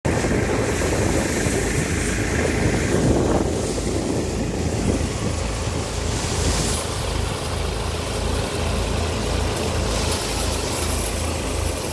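Tractor-driven multicrop thresher running steadily under the tractor's engine, with a constant low hum and a noisy rush as dried crop plants are fed into it.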